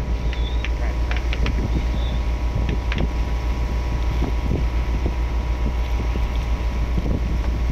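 Fishing boat's engine running steadily with a constant low drone, with wind buffeting the microphone and a few light knocks.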